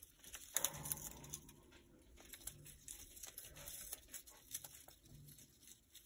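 Congo African grey parrot shredding a stacked cardboard chew toy with its beak: faint crackling, tearing and crunching, a quick run of small snaps, loudest about half a second in.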